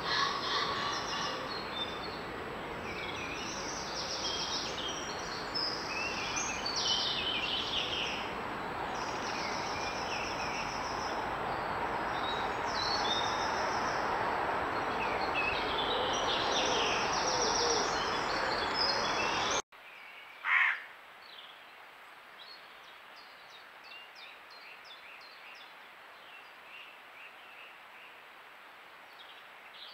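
Dawn chorus of several woodland songbirds singing over a steady rushing noise. About two-thirds of the way through it cuts to a quieter recording with fainter birdsong and one short, loud bird call a second after the cut.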